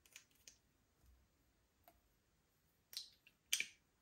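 Slime being mixed, giving scattered small sticky clicks and pops, with two louder pops about three and three and a half seconds in.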